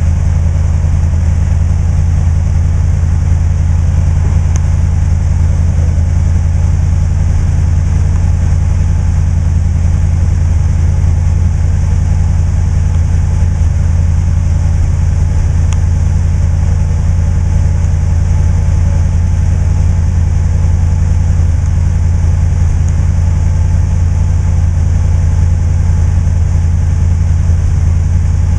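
A steady, loud low mechanical hum from a 1966 Lincoln Continental convertible, unchanging while its power top lifts and folds down into the open rear deck, with one or two faint ticks.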